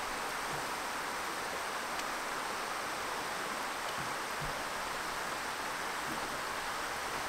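Steady rush of water pouring over a low concrete spillway weir.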